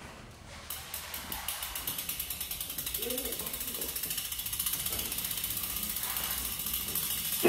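Bicycle rear freewheel hub clicking rapidly as the bike is wheeled along without pedalling, the pawls ticking in a fast even stream that grows louder.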